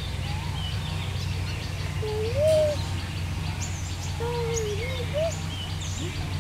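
Birds calling: a low whistled call that rises and falls, heard twice, with scattered higher chirps from small birds over a steady low hum.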